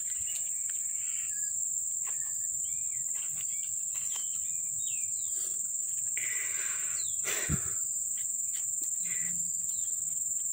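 Steady high-pitched insect drone, with scattered short bird chirps and a sharp click about seven and a half seconds in.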